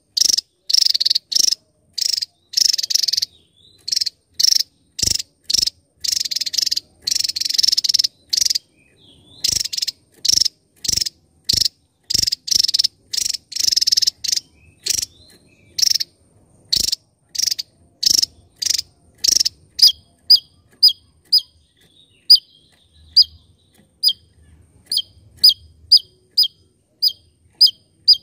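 Javan tesia singing: repeated loud, rapid buzzy bursts of song, then, about two-thirds of the way in, a steady series of short, sharp, downward-slurred call notes, roughly three every two seconds.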